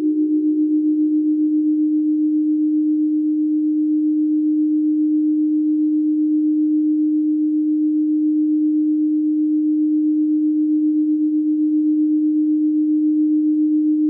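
Ambient music: a single steady electronic drone tone, nearly pure, with a gentle pulsing in loudness of about four beats a second. A second, slightly higher tone fades away about a second in.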